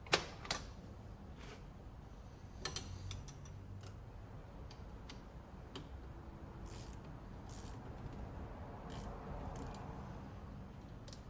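Metal hand tools clinking and clicking on a workbench and against a classic VW generator's end plate during reassembly: a sharp clink at the very start, another half a second later, a short cluster near three seconds in, then scattered light ticks.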